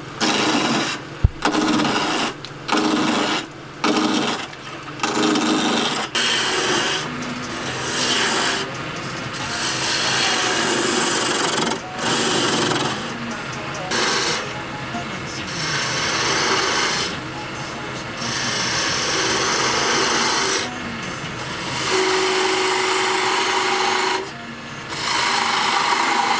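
Wood lathe spinning a small wooden knob blank while a hand-held turning chisel cuts it, a scraping, hissing cut of steel on wood. The cuts come short and quick, about one a second, for the first few seconds, then turn into longer steady passes, with the lathe running more quietly in the gaps.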